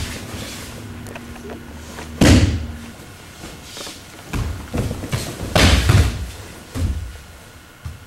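Bodies slamming onto a padded mat as attackers are thrown and take breakfalls: one loud thud about two seconds in, then a run of further thumps and slaps between about four and seven seconds.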